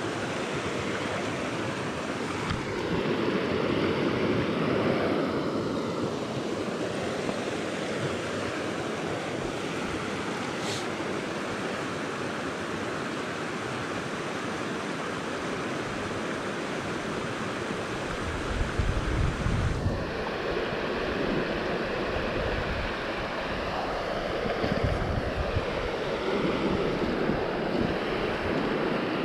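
Small stream's water rushing over rocks in a steady hiss, with wind buffeting the microphone as a low rumble about two-thirds of the way through.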